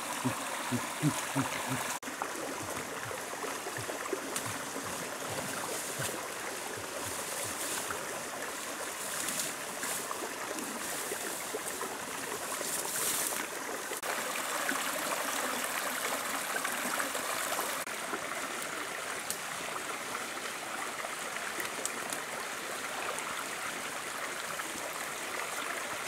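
Small rocky forest stream running steadily over stones, a continuous trickling and gurgling of water.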